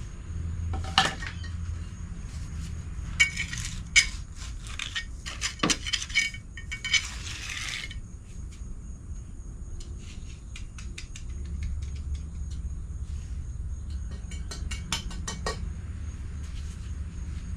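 Scattered clinks, taps and short scrapes of hand tools working, in clusters, over a low steady hum.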